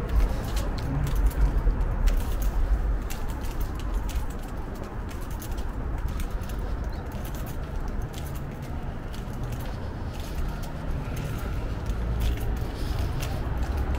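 Pigeons cooing against a steady low rumble.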